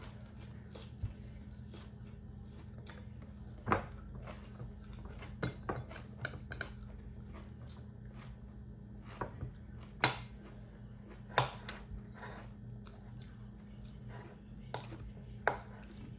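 Spoons clinking against bowls and dishes during a meal of rice and soup, in sharp irregular clinks every second or two, over a steady low hum.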